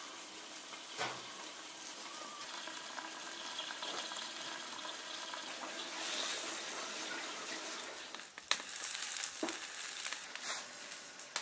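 Spicy lamb braise cooking in a lidded wok, a steady sizzling hiss, with a few sharp clicks in the second half.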